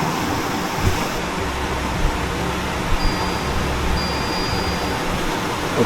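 Mountain stream water rushing steadily, with a low rumble underneath for a few seconds in the middle.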